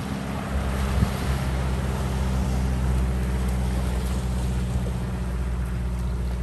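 Motorboat engine running at a steady drone, with wind and rushing water around it.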